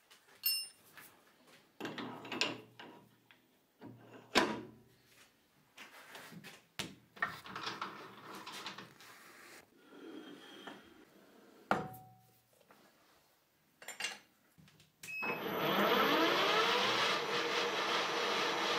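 Scattered knocks and clicks of metal tooling being handled and set up on a lathe. About fifteen seconds in, the lathe starts: its motor and spindle run up with a rising whine and then run steadily, the start of rotary-broaching a Torx (star) hole.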